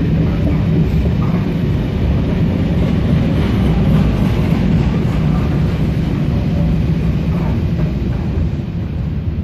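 Loaded sand hopper wagons of a freight train rolling past on the track: a loud, steady low rumble that eases slightly near the end as the last wagon goes by.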